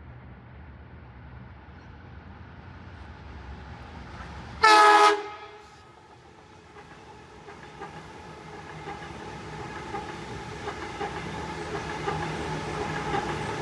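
Train horn sounding one short, loud blast about a third of the way in, followed by a train approaching with a steady whine and wheel clicks, growing louder toward the end.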